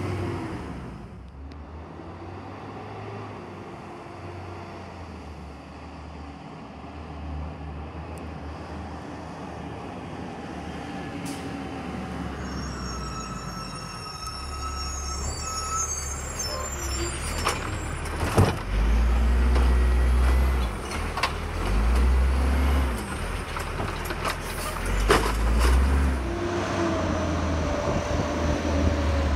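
Automated side-loader garbage trucks working curbside: diesel engines running and getting louder in the second half, a hydraulic whine partway through, and several sharp clanks.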